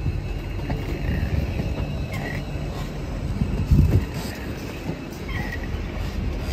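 LNER Class 800 Azuma train rolling slowly past on arrival, a steady low rumble of wheels on rail. Two short high-pitched squeals sound about two and five seconds in, and a low thump comes about four seconds in.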